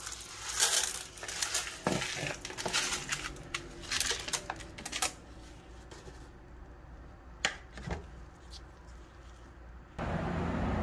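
A seasoning packet rustling as it is shaken over an aluminium foil pan, in quick crackly bursts for the first five seconds, then only a few faint clicks. A steady louder background cuts in near the end.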